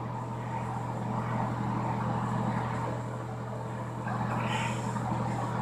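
Steady low hum of a ventilation fan, with an even faint hiss over it.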